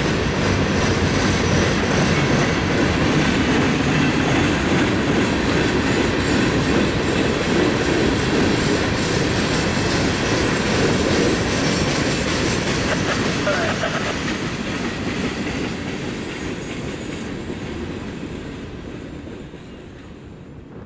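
Freight train cars rolling past, the wheels clacking over the rail joints in a steady rush of noise that fades away over the last several seconds as the train goes by.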